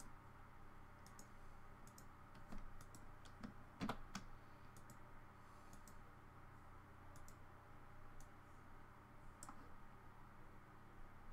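Faint computer mouse clicks, scattered and irregular, with a louder cluster about four seconds in, over a low steady hum.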